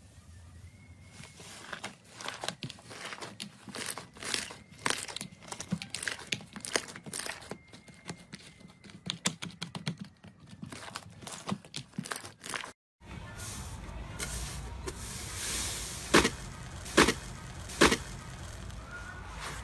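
Slime being handled close to the microphone, giving a dense run of small crackles and clicks. After a short break, a second slime clip with a steadier squishy bed and three sharp pops about a second apart.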